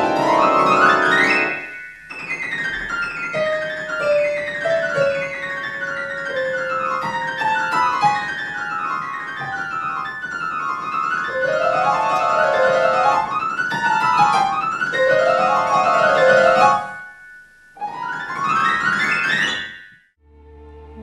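Solo grand piano playing a fast classical piece of rapid rising and falling runs of notes. There is a brief break about seventeen seconds in, then a quick upward run, and the playing stops just before the end.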